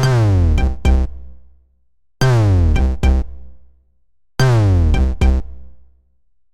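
Android CyanogenMod 7 ringtone: a synthesized electronic phrase, a deep falling pitch sweep followed by two quick hits, played three times about two seconds apart, each fading out.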